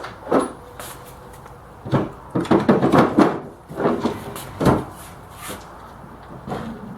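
Accessory compartment door on a miter saw stand being opened and handled: a series of knocks and clunks, busiest about two to three and a half seconds in.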